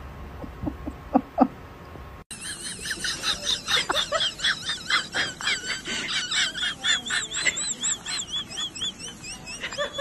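Birds chirping: a dense run of short, high, warbling chirps, several a second, starting suddenly about two seconds in.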